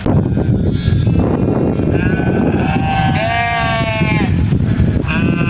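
Sheep bleating: several calls, the loudest and longest about three seconds in, over a steady low rumbling noise.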